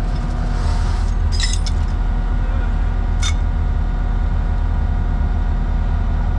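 Diesel engine running steadily, with a few light metal clinks between about one and two seconds in and one more about three seconds in.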